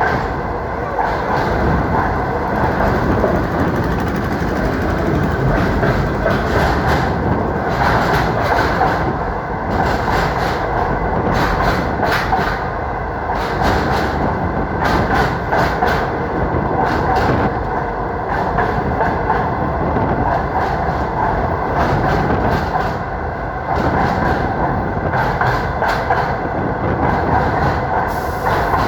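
Train running along the rails at speed: a steady rumble of wheels on track, broken by frequent irregular clacks.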